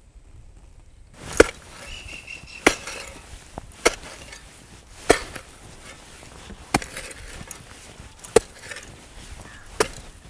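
A hoe chopping into hard earth, digging a hole: about seven sharp strikes at an even pace of roughly one every second and a half, starting about a second in.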